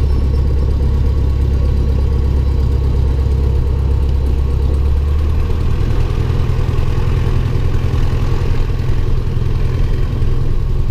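Single-engine light aircraft's piston engine and propeller running steadily while taxiing, heard from inside the cockpit. About halfway through, the engine note steps up a little higher.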